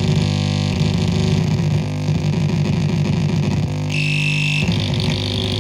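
Ciat-Lonbarde Old Mr Grassi touch synth played with fingers on its brass contact pegs: a loud, gritty, buzzing low drone whose texture shifts every second or so as the fingers move. A high whine joins briefly about four seconds in.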